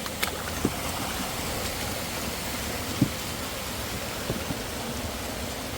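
Steady rush of flowing creek water, with a few faint clicks and knocks.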